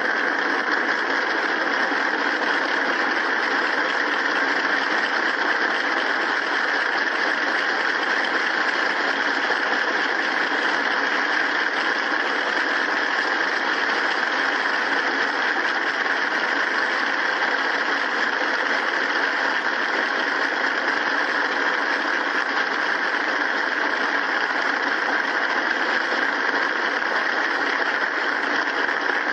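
A large crowd applauding in a long, steady ovation.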